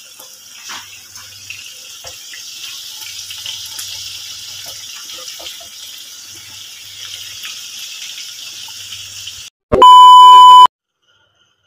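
Eggs and then burger patties sizzling in hot oil in a frying pan, a steady hiss with light crackling. Near the end, a loud, steady test-tone beep of the kind played with TV colour bars sounds for about a second and cuts off abruptly.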